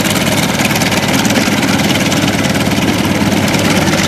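Grumman Wildcat's radial engine running steadily at taxi power, a continuous rumble with a fast, even beat.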